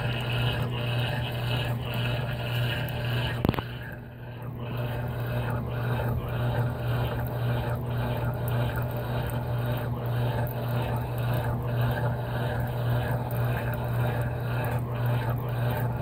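Consul 16 kg top-load washing machine agitating a load in water, with a steady low motor hum and the sloshing of water and clothes in the drum. A click about three and a half seconds in is followed by a brief lull, then the churning carries on in an even rhythm of roughly one stroke a second.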